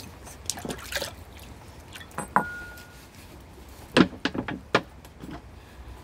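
A dog eating from a bowl: scattered clicks and knocks, one of them ringing briefly about two seconds in, with the loudest cluster about four seconds in.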